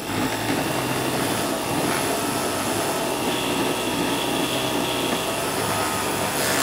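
Juki MO-3616 industrial overlock serger sewing a 4-thread overlock seam on knit fabric, running steadily with a dense mechanical whir from the moment it starts.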